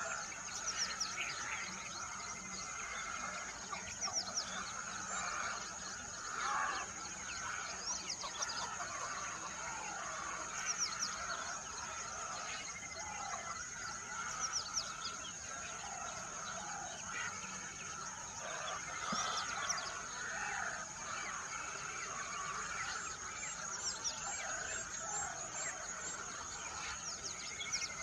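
Several birds chirping and calling, with many short falling chirps scattered throughout, over a steady high-pitched hum.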